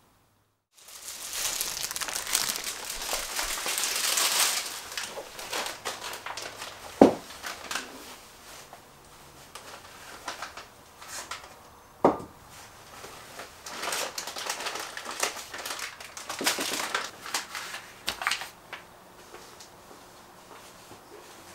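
Plastic shopping bags and cellophane rustling and crinkling as groceries are unpacked onto a kitchen counter, with two sharp knocks a few seconds apart as items are set down.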